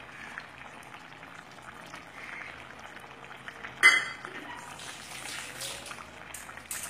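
Thick tomato and date chutney bubbling and popping as it simmers in the pan, with one sharp click about four seconds in.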